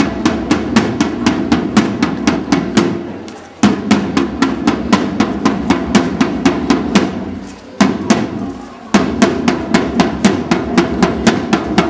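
Shoulder-slung side drum beaten with sticks in a steady marching rhythm of several sharp strokes a second.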